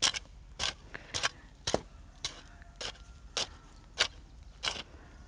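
A hand hoe chopping into soft soil in even strokes, about two a second, drawing soil over manure around seedlings to cover it.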